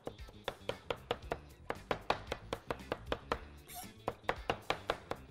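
Cleaver chopping peeled raw shrimp to a coarse mince on a cutting board: rapid, even strikes of the blade, about four to five a second.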